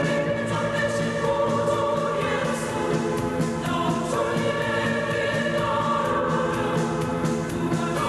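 A mixed choir singing a hymn in held, sustained chords with instrumental accompaniment.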